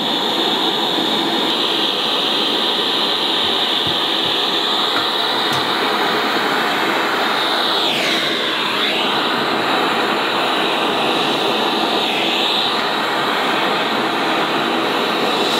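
Handheld propane torch with a soldering-tip attachment burning with a steady hiss as it heats a copper lug to flow solder into a heavy copper cable. Its tone briefly dips and comes back up twice.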